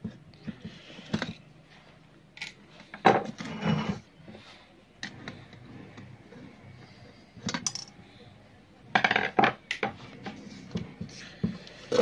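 Tools and small metal parts clinking, tapping and knocking irregularly while an electric lassi churner is taken apart for repair, with the loudest clatters about three seconds in and again about nine seconds in.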